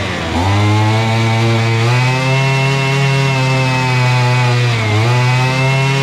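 Castor 55 brush cutter's two-stroke engine running at high revs; the revs dip sharply right at the start and again about five seconds in, picking straight back up each time. It is taking full throttle with its clogged exhaust cleaned out.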